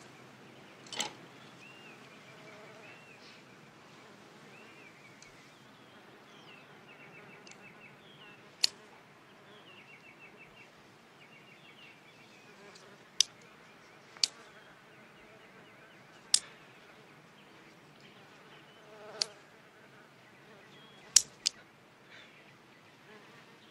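A housefly buzzing in short, wavering stretches as it flies about, with several sharp clicks of wooden chopsticks snapping shut as they try to catch it.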